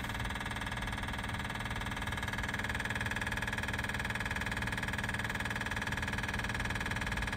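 Onan 8,000-watt quiet diesel generator's three-cylinder engine struggling through a slow cold start, a steady mechanical drone. The hard start is the sign that the glow plugs are not heating; the fault was traced to a blown fuse feeding them.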